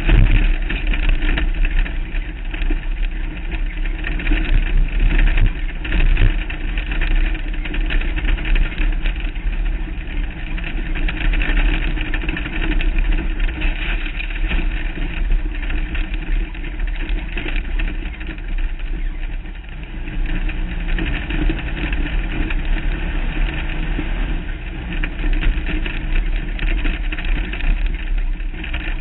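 Off-road race vehicle driving fast over a desert dirt trail, its engine running steadily under load, with heavy rumble and wind noise on the hood-mounted camera.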